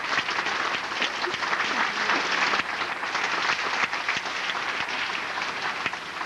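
Audience applause: many hands clapping at once in a dense, even patter that eases slightly toward the end.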